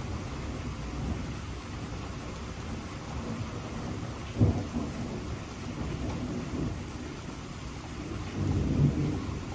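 Steady rain with thunder rumbling. There is a sharp crack about four and a half seconds in and a louder, longer rumble near the end.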